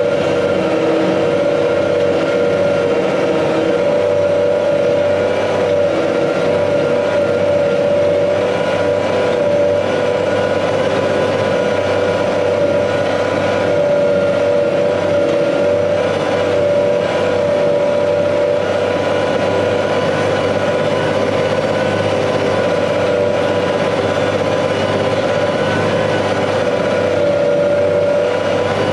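Tractor diesel engine running steadily under load, with a steady whine over its low drone.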